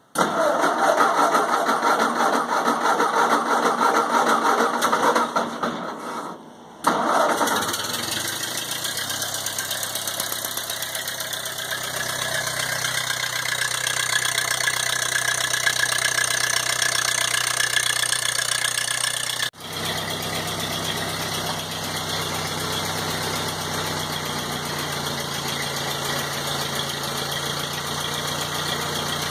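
A 1952 Ford 8N tractor's four-cylinder flathead gasoline engine being cold-started at −21 °C with the choke out. The starter cranks it for about six seconds and stops for a moment, then the engine catches about seven seconds in and keeps running steadily. The sound cuts out for an instant about twenty seconds in.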